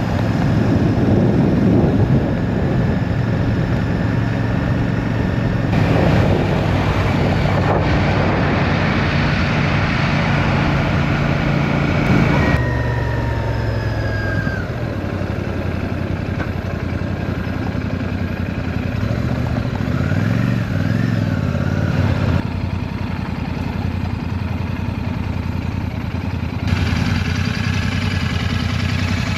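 Royal Enfield Shotgun 650's parallel-twin engine running under way, heard from the bike with wind and road rush. The engine pitch falls about halfway through and rises and falls a couple of times later, and the overall sound shifts abruptly several times.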